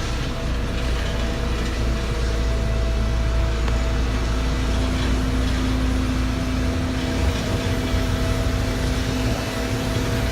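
Steady, loud low mechanical rumble with a constant droning hum.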